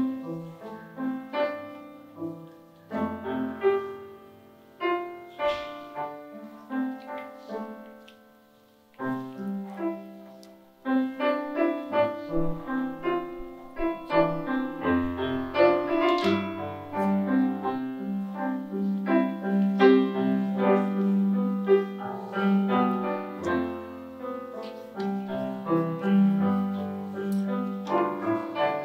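Solo piano playing, with notes struck and left to ring. The playing thins to a near-silent pause about eight seconds in, then picks up again and grows fuller, with more low notes.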